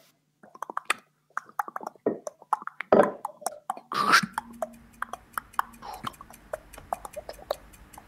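Mouth clicks and beatbox-style vocal sounds imitating tap dancing. From about four seconds in they give way to a fast run of light taps, fingers drumming on a tabletop like tap shoes.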